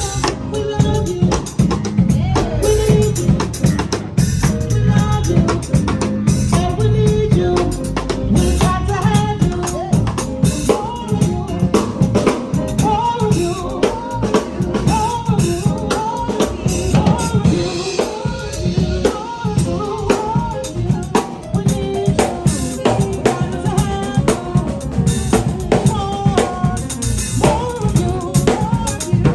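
Live band playing an instrumental: a drum kit with bass drum, snare and rimshots keeping a steady beat under bass guitar, keyboard and a lead guitar melody with bending notes.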